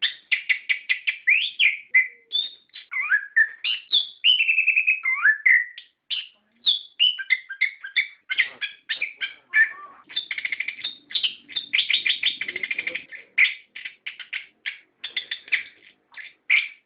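Orange-headed thrush singing a long, unbroken, varied song. Rapid runs of short chattering notes alternate with whistled phrases that slide up and down in pitch.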